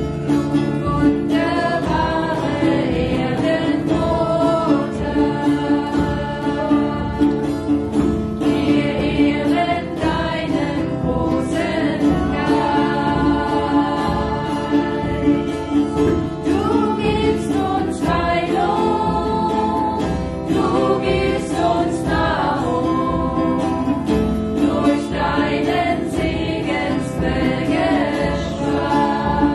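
A group of voices singing a chant together, with acoustic guitar, a steady beat on frame drums and a held drone underneath.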